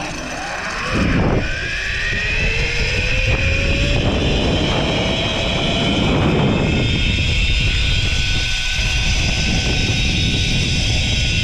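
Zip line trolley pulleys running along the steel cable: a continuous whirring that builds about a second in, with a whine gliding slowly up in pitch as the rider gathers speed, over a steady rushing noise.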